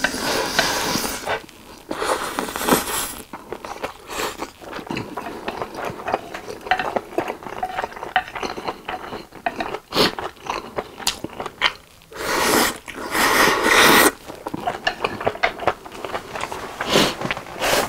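Close-miked eating of japchae (sweet-potato glass noodles): wet chewing with many small mouth clicks, and longer slurps of noodles near the start, about two and a half seconds in and again around thirteen seconds in.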